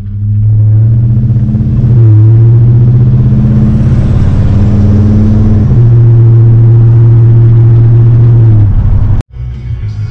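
Chevrolet Silverado's gas engine running loud and deep through a Flowmaster Super 40 muffler and 5-inch exhaust tip as the truck drives under throttle. The note steps briefly about two seconds and six seconds in, eases off near the end, and is cut short.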